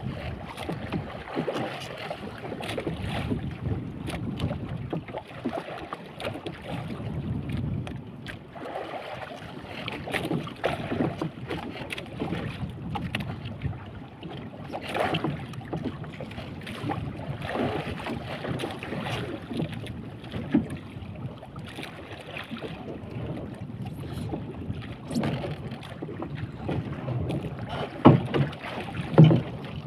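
Wind buffeting the microphone and sea water slapping against a small wooden boat's hull, uneven and gusty, with two sharp knocks near the end.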